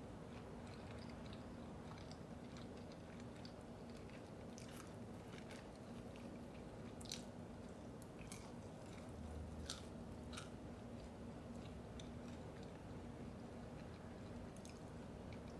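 Close-miked chewing and biting of fast food, with scattered short, crisp mouth clicks and crunches, most distinct in the middle of the stretch. A faint steady hum runs underneath.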